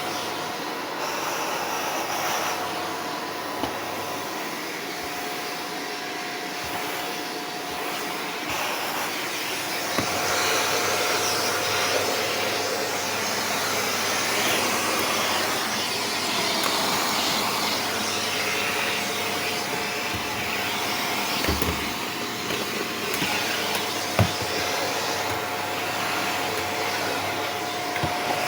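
Shark Powered Lift-Away corded vacuum cleaner running steadily in handheld lift-away mode, a continuous rushing of air with a thin steady whine. A few short knocks come through, about a third of the way in and twice near the end.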